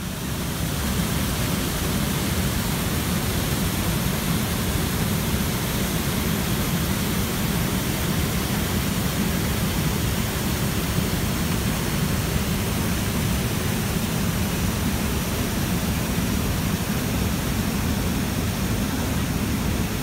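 Manavgat waterfall, a broad, low cascade of river water pouring over a rock ledge into a pool, makes a steady, loud rush with a deep rumble underneath. It fades in over the first second.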